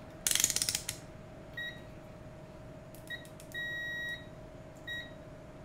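A brief clatter as a digital multimeter and its test leads are set down, then the meter beeps four times in a high steady tone: three short beeps and one longer beep of about half a second in the middle. The beeps come as the meter is switched on and set up for a continuity check.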